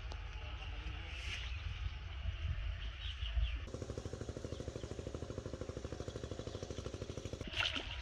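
Steady low outdoor rumble, then from about halfway a small engine running in the background with a fast, even beat. Near the end, sudden splashing and rustling as a bamboo fishing rod is jerked up to strike a fish in a weedy pond.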